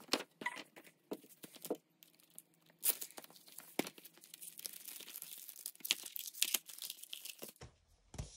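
A large folded paper poster calendar being handled and folded up: paper rustling and crinkling, with sharp crackles throughout.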